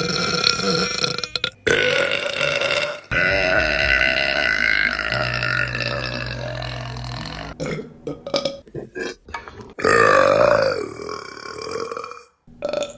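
Women belching, several long, drawn-out burps one after another, the longest lasting about four seconds, with a few short burps in between.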